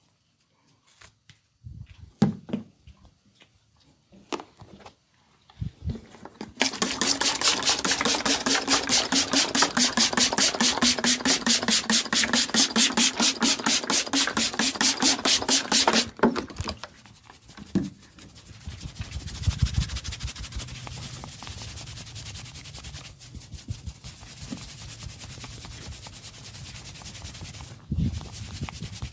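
Hands rubbing skin during a massage. A few soft taps and knocks come first, then a loud, fast, even rubbing of several strokes a second sets in and cuts off about ten seconds later, followed by quieter, steadier rubbing.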